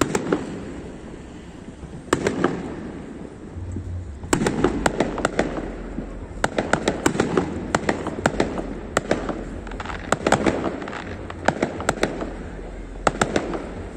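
Fireworks display: aerial shells bursting with booms, and many sharp pops and rapid crackling between and after them, densest from about 4 seconds in.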